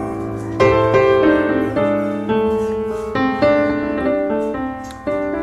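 Background piano music: single notes and chords struck a few times a second, each ringing and dying away.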